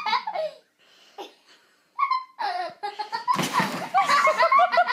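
People laughing and giggling in high voices, with a short loud burst of noise a little past three seconds in as the laughter swells.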